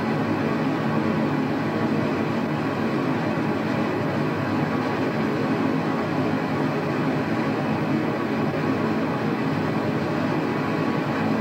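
Steady rushing roar of a waterfall, an even noise with no breaks or changes.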